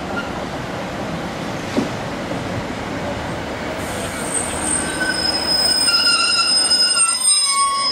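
Class 156 diesel multiple unit pulling into the platform: a steady rumble, then from about halfway a high squeal of several steady tones as it brakes to a stop, louder near the end and ending abruptly.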